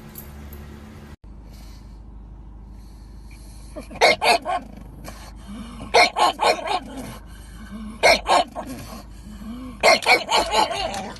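A dog barking in short runs of two or three barks, about every two seconds, starting about four seconds in.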